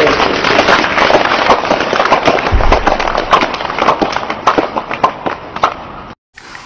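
Audience applauding: loud, dense clapping that gradually thins to scattered claps and then cuts off abruptly near the end.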